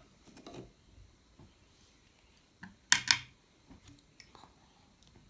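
Faint chewing and small clicks of wooden chopsticks against a plate, with two sharp clacks close together about three seconds in as the chopsticks are set down on the plate.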